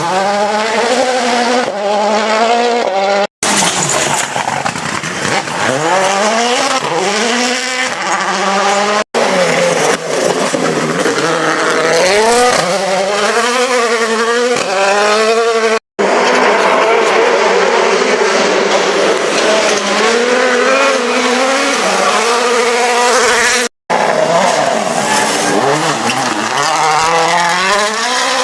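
World Rally Cars with turbocharged four-cylinder engines driven flat out on gravel, their engines revving hard and dropping back again and again through gear changes, with a hiss of tyres on gravel. The sound breaks off abruptly four times as one car's pass gives way to another's.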